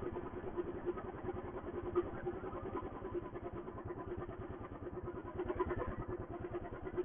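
Royal Enfield Thunderbird's single-cylinder engine running at low revs, close to idle, with a steady, even beat.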